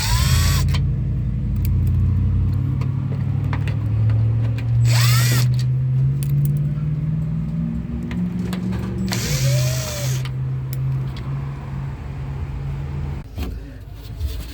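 Power drill-driver backing out the three Torx T30 screws that hold a door latch actuator. A steady motor tone shifts in pitch under load, with three short louder bursts about every four to five seconds.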